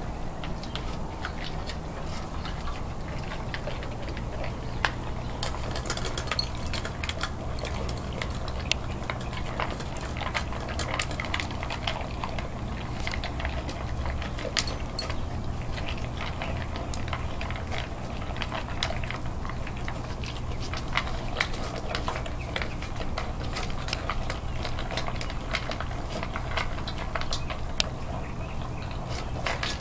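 Two pit bulls eating wet dog food mixed with dry kibble from their bowls: a continuous run of wet chewing and licking with many small irregular clicks, over a steady low hum.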